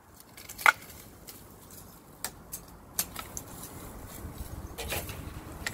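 Long-handled pole pruner snipping branches in a tree, over rustling leaves. There is one sharp snip under a second in, and several lighter clicks follow.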